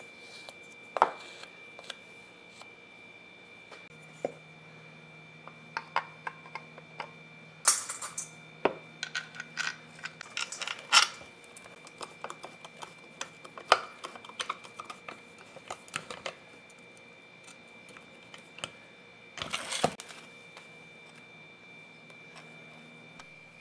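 Metal drill parts and a screwdriver being handled during reassembly of an electric drill's gear housing: scattered light clicks, taps and clinks of metal on metal and on the workbench, with a short rustling scuffle near the end.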